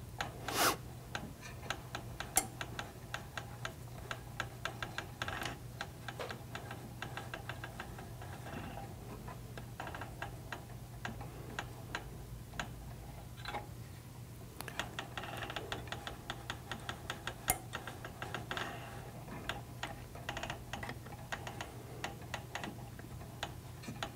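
Hand rod wrapper clicking and ticking as the rod blank is turned by hand, winding thread off the spool onto a guide foot: many light clicks in uneven clusters, with a few sharper ticks.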